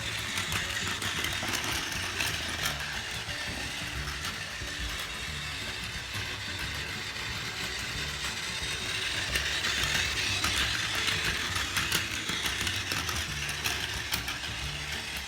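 Battery-powered Plarail Doctor Yellow toy train running on plastic track: the small motor and gearbox whir steadily, with rapid clicking from the wheels on the rail joints, growing louder around ten seconds in. Faint background music underneath.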